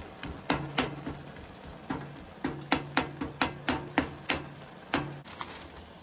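A metal spatula or ladle knocking against a frying pan while stir-frying noodles with dry meat: about a dozen sharp knocks, quickening to about four a second in the middle and stopping about five seconds in.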